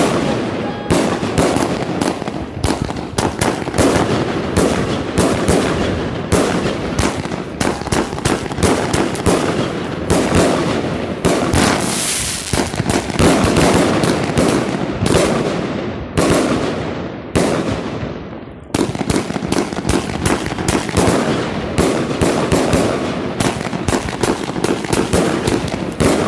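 Aerial fireworks bursting close overhead in a dense, continuous barrage of bangs and crackles, with a short lull about two-thirds through before the bangs resume.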